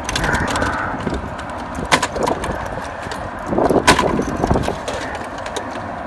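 Gloved hands handling wiring inside an HVAC unit's control panel: a few sharp clicks and knocks about two seconds in and a louder cluster near four seconds, over a steady low rumble.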